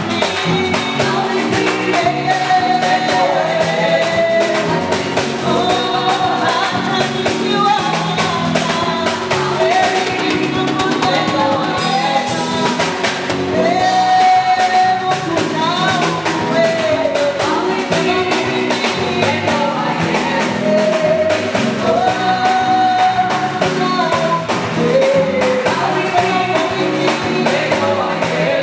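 Live worship song: a woman singing lead with backing singers, over a band with drum kit and keyboard.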